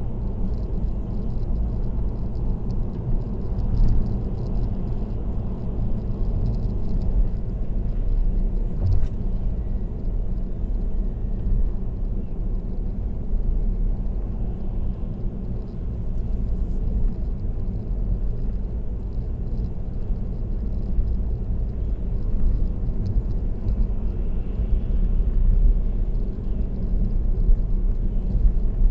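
Steady low road and tyre rumble of a car cruising on an expressway, picked up by a dashcam inside the car.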